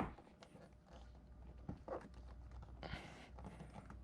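A sharp plastic click, then faint scattered taps and rustling: the fog light's plastic surround being pried loose and handled.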